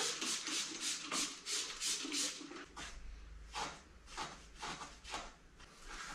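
Hand scrubbing of an Audi B5 S4 alloy wheel: repeated rubbing strokes, quick and regular in the first half, then slower and sparser.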